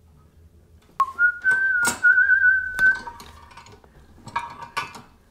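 A person whistling one held, wavering note for about two seconds, punctuated by sharp clicks from small parts being handled. Softer clinks and rustling of small hardware follow near the end.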